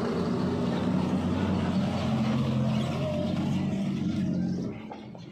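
A vehicle engine running steadily, then dropping away about four and a half seconds in.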